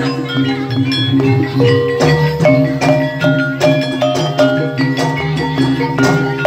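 Banyumas gamelan music accompanying an ebeg hobby-horse trance dance: quick runs of short struck keyed-percussion notes over steady low sustained tones.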